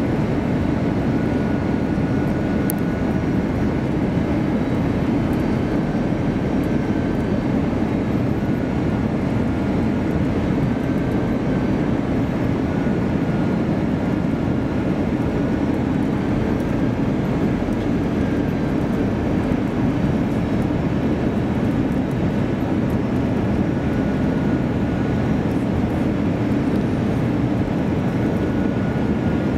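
Steady cabin noise inside an Airbus A321-200 airliner in flight: engine and airflow noise, with a faint high tone that wavers slightly.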